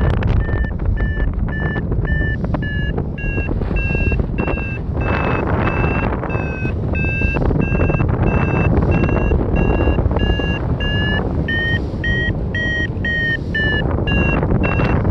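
Paragliding variometer beeping its climb tone: short repeated beeps, about two or three a second, rising slightly in pitch near the end before dropping back, signalling that the glider is climbing. Heavy wind noise on the microphone runs underneath.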